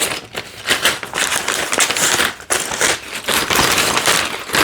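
Paper bags of Lego pieces being handled and crinkling, an irregular rustle in uneven bursts.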